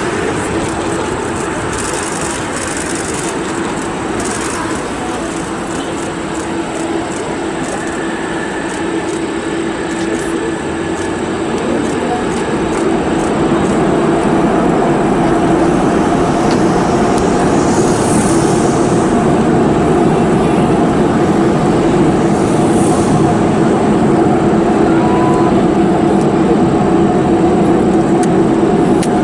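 Jet engine noise from an Airbus A380-861's four Engine Alliance GP7200 turbofans during the landing roll, a steady, loud rumble with a droning hum that swells about halfway through as reverse thrust takes effect.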